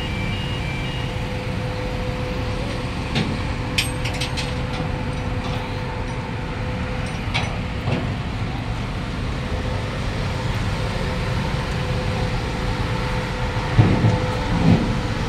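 Sany 160-ton truck crane's diesel engine running steadily, a low rumble with a thin steady hum over it. A few short clicks and knocks sound in the first half, and louder low bumps come near the end.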